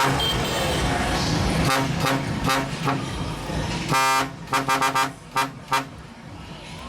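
Vehicle air horn sounding a series of short toots, then one longer blast about four seconds in, followed by a quick run of short toots, over loud street noise.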